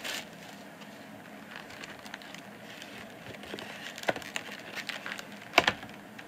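Cardboard trading-card box being handled and opened: faint scraping and small taps, with a knock about four seconds in and a sharper, louder knock about five and a half seconds in.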